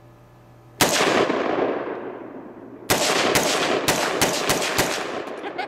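AR-15 rifle firing: a single shot about a second in, its report echoing away for a couple of seconds, then a quick string of about seven shots near the end, roughly three a second.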